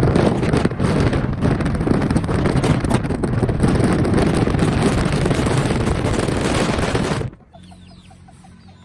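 Loud wind and road noise from a moving vehicle, buffeting the microphone, that cuts off suddenly about seven seconds in; faint bird chirps follow in a quiet stretch.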